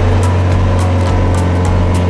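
Small fishing boat's engine running steadily underway, a loud, even low drone.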